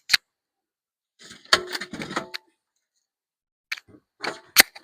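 Pigs mouthing and chewing right at the microphone: a rustling, crunching stretch about one and a half to two and a half seconds in, and sharp clicks near the start and near the end.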